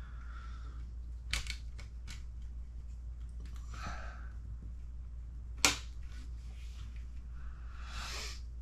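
Plastic RC truck suspension parts being handled, with a few sharp clicks, the loudest about five and a half seconds in: plastic rod ends snapping onto and popping off metal ball studs. Soft rubbing and handling noises fall between the clicks.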